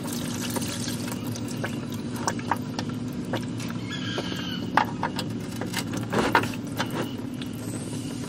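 Transmission fluid mixed with floodwater pouring and dripping from the loosened automatic-transmission pan, with scattered clicks and knocks of hands and tools on the metal pan, over a steady low hum.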